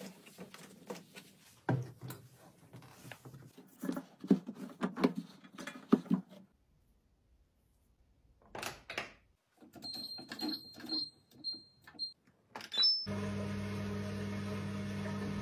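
A cloth rubbing in uneven strokes over a front-loading washing machine's glass door, then, after a quiet pause, a run of short high beeps from the Samsung washer's control panel as its buttons are pressed. Near the end a steady, even hum starts and holds.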